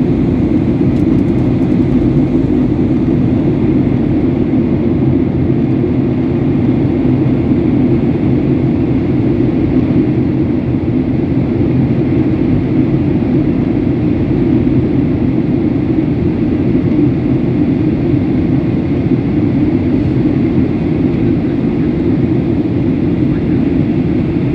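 Steady cabin noise of an airliner in flight: engine and airflow noise as a loud, constant low drone that does not change.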